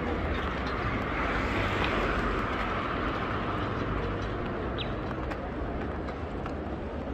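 A car driving past close by, its tyre and engine noise swelling to a rush about two seconds in and then fading as it moves away, over a steady hum of street traffic.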